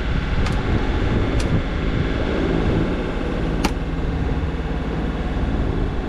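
A Valiant 40 sailboat's inboard diesel engine running steadily under power, a low even drone. Three brief sharp clicks sound over it, the loudest a little past the middle.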